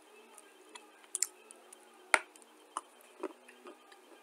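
Dry clay being chewed: a handful of crisp, irregular crunches, the sharpest about two seconds in, over a faint steady hum.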